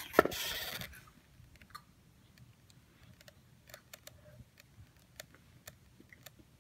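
Cardboard toy box handled close to the microphone: a brief rustle in the first second, then faint scattered clicks and taps.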